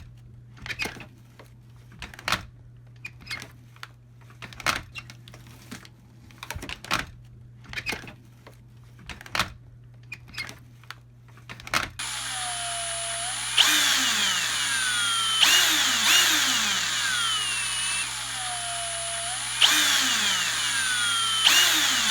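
Irregular clicks and knocks, a few each second, over a low hum. About twelve seconds in they give way abruptly to a loud, continuous motorized whirring, whose pitch sweeps down again and again with a fresh surge every two seconds or so.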